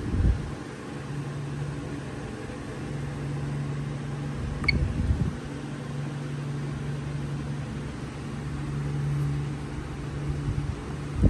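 Steady low hum with a few handling bumps. About halfway through comes a single short, high electronic beep from a Napco alarm keypad.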